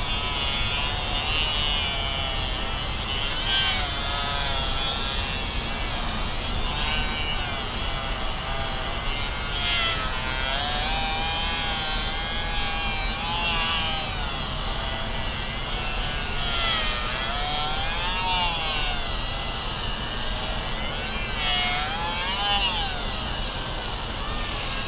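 Handheld rotary tool with a grinding-stone bit running at high speed, grinding out the inner bore of a rubber fuel-injector seal. Its whine wavers up and down in pitch as the bit presses into the rubber and eases off.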